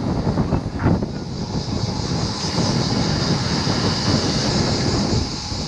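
Wind buffeting the microphone of a camera carried on a moving road bike: a rough, uneven rushing rumble, with a steady high hiss above it.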